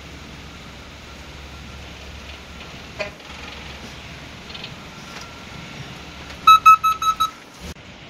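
Rapid electronic beeping at one high pitch: faint and intermittent at first, then a loud run of about five quick beeps near the end, over a steady outdoor background hum. A single sharp click about three seconds in.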